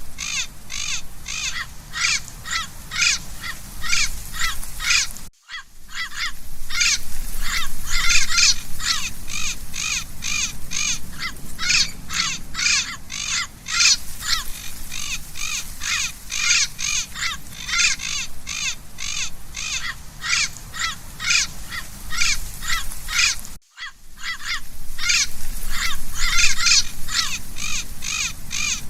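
Parrot calling in a fast, unbroken run of short harsh squawks, about three to four a second. The run cuts out for a moment twice.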